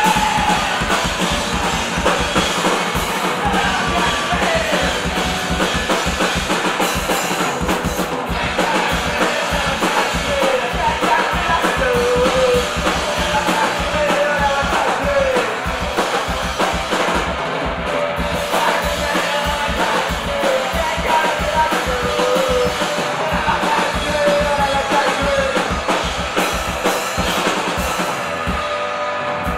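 Punk rock band playing loud live: a steady drum-kit beat, electric guitar and a male lead vocal sung into the microphone.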